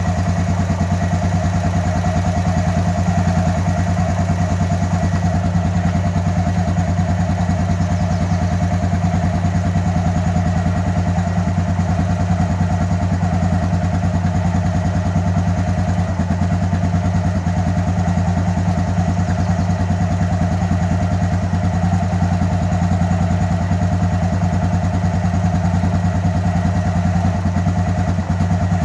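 Honda Recon ES 250 ATV's single-cylinder engine idling steadily while the carburetor's air-fuel mixture is being adjusted.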